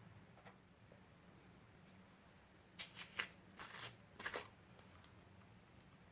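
Slime being handled: a cluster of quick, crackly, sticky pops and rustles lasting about a second and a half, starting about three seconds in, over a faint low hum.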